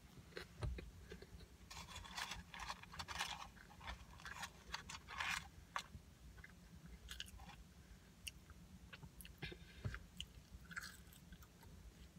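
Close-miked mouth sounds of a person chewing a mouthful of burger: soft, irregular wet smacks and crunches, busiest in the first half and thinning to scattered clicks later.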